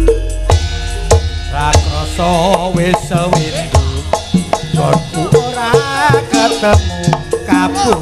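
Javanese gamelan (karawitan) music in Sragenan style: ringing metallophones and hand-drum strokes keep a steady beat. A deep gong-like tone fades in the first second, and a singer's voice comes in about two seconds in with wavering held notes.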